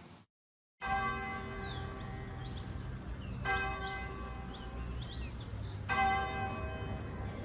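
Church bell tolling, starting about a second in, with three strokes about two and a half seconds apart, each ringing on with many overtones into the next.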